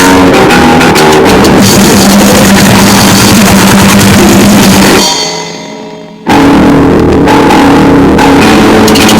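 Noisegrind music, very loud and dense: distorted guitar and pounding drums. About five seconds in it breaks off, leaving a few ringing tones fading for about a second, then the full noise crashes back in.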